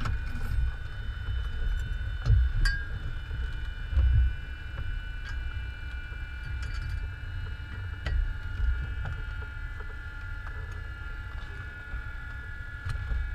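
Cockpit sound in a Cessna 172N: a steady high-pitched whine over a low rumble with irregular thumps, and a few light clicks.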